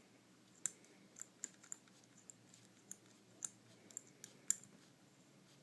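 Faint, irregular clicking of an Abus 155/40 combination lock's number wheels being turned notch by notch while the lock is held under tension, feeling for the number at which the wheel gives and loosens.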